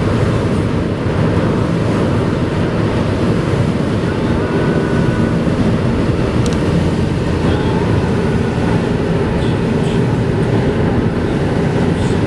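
Steady rumble of a car driving on a wet highway, heard from inside the cabin: tyre and road noise with the engine running underneath.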